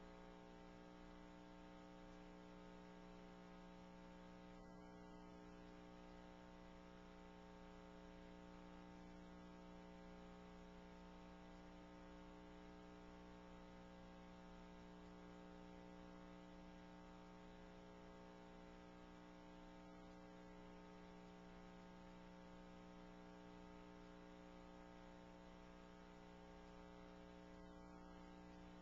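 Near silence with a faint, steady electrical hum and no other sound.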